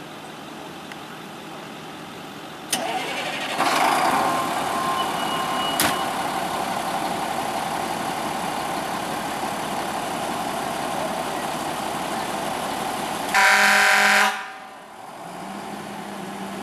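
A fire engine's Federal Q mechanical siren starts suddenly about three seconds in and sounds steadily for about ten seconds. Near the end the truck's air horns give one loud blast of about a second, the loudest sound here, and then the sound drops away sharply.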